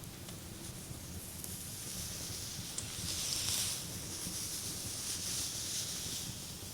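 Soft rubbing across a person's back during an ASMR back massage: a gentle swishing hiss that swells from about a second in, is loudest around the middle and fades near the end.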